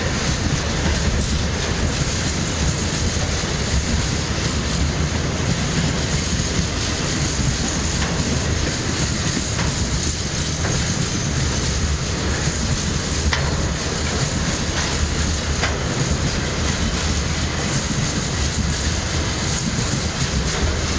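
Freight train of tank wagons rolling past: a steady rumble of steel wheels on rail, with a few sharp clicks over rail joints in the middle stretch.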